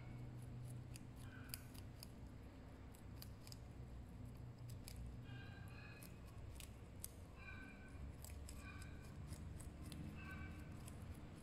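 Two rabbits crunching raw baby carrot: quick, crisp crunching clicks, faint and irregular, with short high chirps in the background every second or so.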